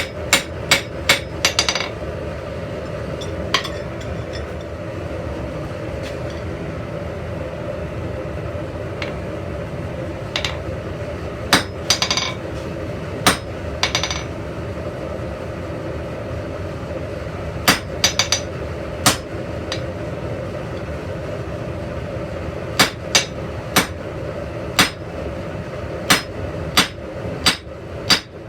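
Blacksmith's hand hammer striking iron on an anvil, ringing blows: a quick run at the start, scattered strikes in the middle, then about one blow a second near the end. A steady hum runs underneath.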